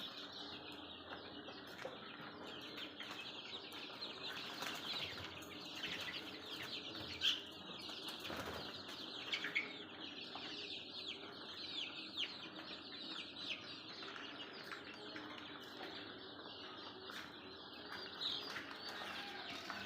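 A large brood of Kadaknath chicks peeping continuously: a dense chorus of many high, short, falling cheeps, with a few louder single cheeps standing out.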